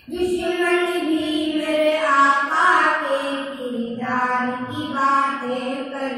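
Boys singing a naat, an Islamic devotional song, without accompaniment, in long held notes that step up and down in pitch.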